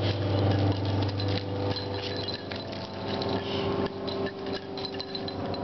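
A steady low hum with scattered light clicks and scuffs over it.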